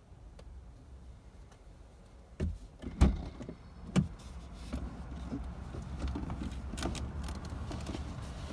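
Car passenger door unlatched and pushed open, with a loud clunk about three seconds in and a sharp click a second later. Shuffling follows as the passenger climbs out, over a louder steady background let in through the open door.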